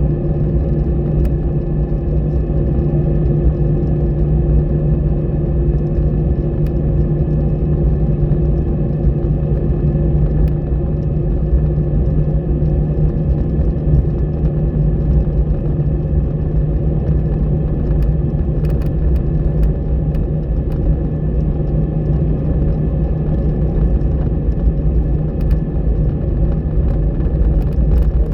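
Steady low rumble of an Airbus airliner's jet engines, with a constant hum of several steady tones and no change in pitch. A few faint ticks come about two-thirds of the way through.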